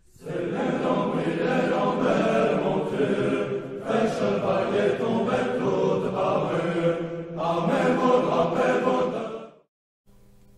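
A choir chanting in several long sustained phrases, stopping sharply about nine and a half seconds in. A faint steady electrical hum follows.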